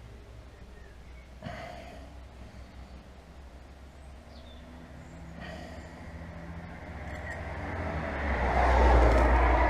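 Motor vehicle traffic going by on a road. Its noise grows steadily louder over the last few seconds, above a low rumble.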